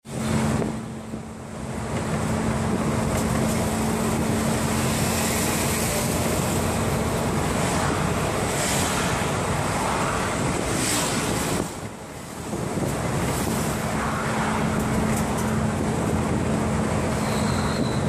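Road and wind noise of a car driving along, heard from inside the vehicle, with a steady low hum that fades out partway through and comes back.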